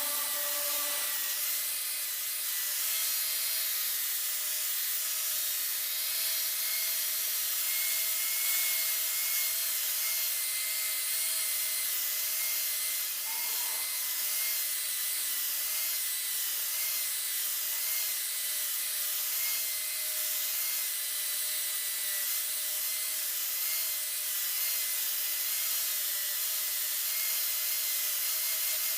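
Small electric power tool running steadily under light load, its motor whine wavering slightly in pitch over a hiss of abrasion, as it works the dao handle.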